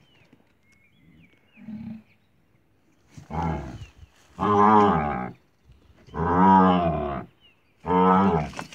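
A calf bawling with its head trapped in a hole in a tree trunk: a short, faint call early on, then four loud, long bawls in the second half, each about a second.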